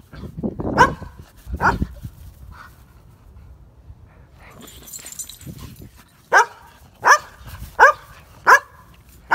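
A standard poodle barking playfully: two barks in the first couple of seconds, then a quick run of four sharp barks evenly spaced about two-thirds of a second apart near the end.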